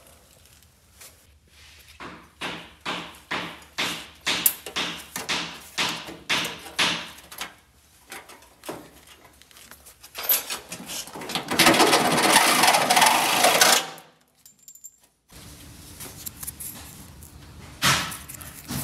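Metal being worked by hand, a run of sharp scraping strokes about two a second. Then a handheld power tool runs loudly for a few seconds and stops.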